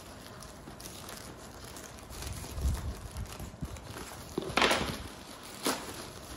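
Black plastic parcel wrapping being cut with a knife and torn open by hand, rustling and crinkling, with a few light knocks on the table, a loud rip a little after halfway and a shorter rip soon after.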